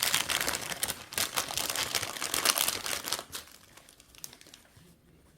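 Packaging crinkling as it is handled and opened, dense crackling that stops about three seconds in, followed by a few faint rustles.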